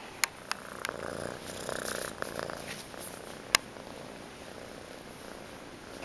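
Young gray tabby domestic shorthair kitten purring steadily while being petted close to the microphone. A few sharp clicks come in the first second, and the loudest single click comes about three and a half seconds in.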